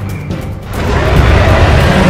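Background music, then about a second in a loud, low, rough dinosaur roar sound effect comes in and holds.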